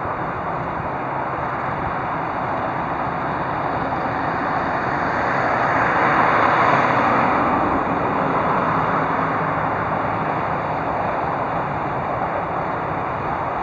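Road traffic noise, a steady rushing hiss that swells as a vehicle passes about six to seven seconds in, then eases off.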